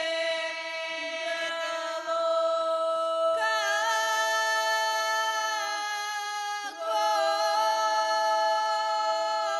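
A group of girls' voices singing an unaccompanied Bulgarian folk song in long held notes, the tune stepping to new notes about a third of the way through, with a brief break for breath about two-thirds of the way in.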